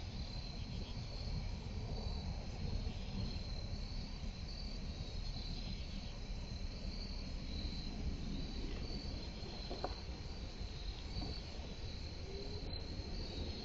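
Crickets chirping in a steady, pulsing high trill over a low, even background rumble.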